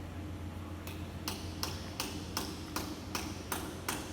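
Sharp, evenly spaced ticks, about three a second, starting about a second in, over a steady low hum.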